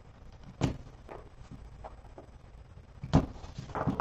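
A folding knife cutting the tape seal on a sealed trading-card box, with handling noise: a sharp click about half a second in and another, louder, about three seconds in, with faint scraping between.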